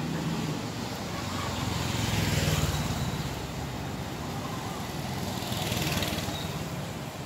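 City street traffic noise. A vehicle swells and fades about two to three seconds in, and a motorbike passes close by about six seconds in.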